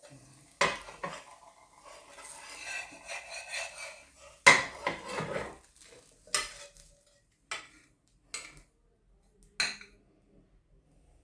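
Metal utensils clinking and scraping against a pot or bowl. There is a short spell of stirring, then a loud clatter, then several separate sharp clinks about a second apart.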